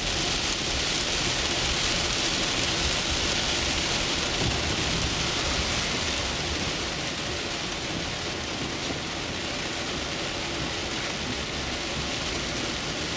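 Heavy rain pelting the roof and windshield of a 2010 Toyota Camry, heard from inside the cabin while driving, with the car's road noise underneath. The rain's hiss eases a little about halfway through.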